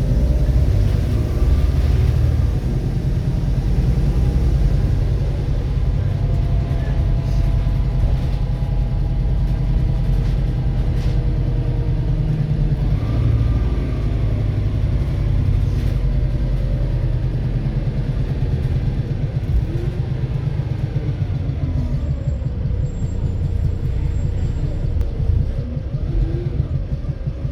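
Volvo B7RLE bus's diesel engine running under way with a heavy, rapidly pulsing rumble, the knocking the uploader points to. A fainter whine slides up and down in pitch several times as the bus's speed changes.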